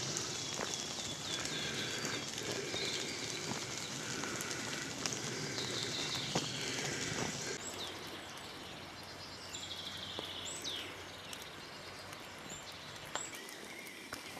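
Several songbirds singing, overlapping chirps and trills, over a steady hiss that drops away about halfway through. A few light footsteps on a leaf-strewn dirt path near the end.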